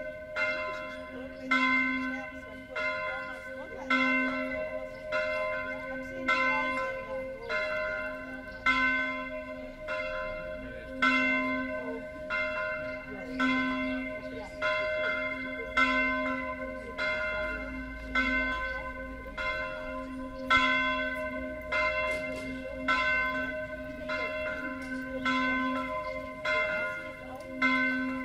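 A single church bell, bell V of a six-bell Tyrolean-style swinging peal, tuned to C4 and cast by Carlo Chiappani of Trento in 1906, swinging full circle. Its clapper strikes about once a second, each stroke ringing on into the next over a steady hum.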